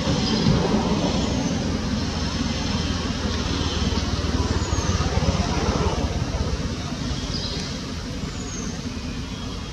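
Steady low outdoor rumble, like road traffic, swelling briefly about half a second in, with a few short high falling chirps scattered through it.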